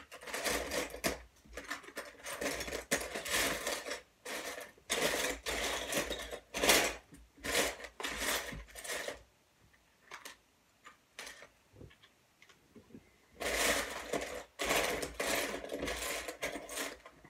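Loose LEGO bricks rattling and clattering as a hand rummages through a plastic bin of pieces, searching for a particular part. It comes in bursts, with a lull of a few seconds of scattered clicks past the middle before the clatter picks up again.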